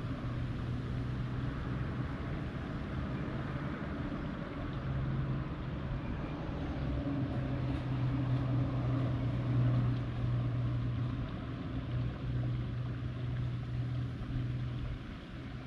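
An engine hums steadily, growing louder through the middle and fading near the end.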